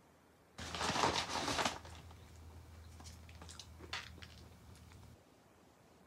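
Ketchup packet crinkling as it is torn open and squeezed, loudest for about a second near the start, then a few small crackles and clicks.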